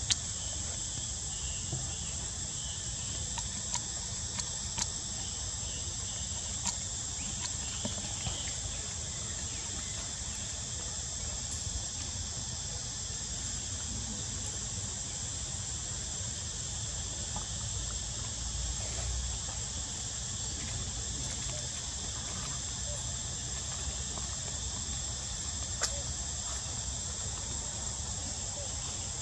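Steady, high-pitched chorus of insects buzzing, with a few faint clicks.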